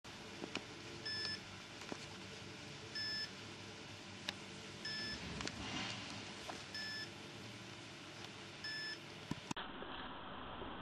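Electronic beeper giving a short, steady beep about every two seconds, five times, over a faint hiss with a few light clicks. The beeps stop near the end, where the background sound changes abruptly.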